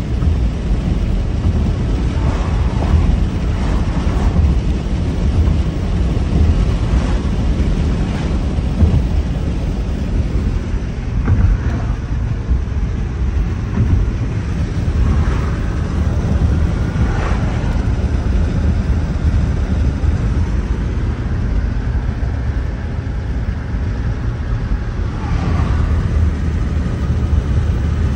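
Steady road and tyre noise of a car driving at highway speed, heard inside the cabin as a low rumble.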